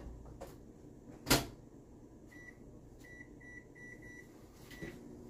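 Microwave oven door shut with a knock about a second in, then the keypad beeping as the cooking time is entered: a single beep, a quick run of about four beeps, and one more near the end.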